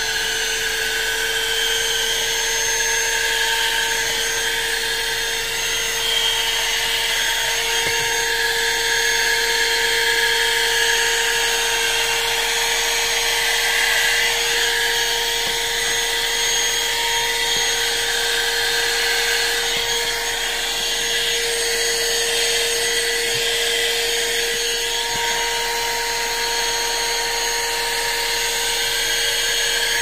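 Bergmann Stunner handheld car vacuum cleaner with a 150 W motor running steadily, a continuous high-pitched whine, as its nozzle sucks dust off a rubber floor mat.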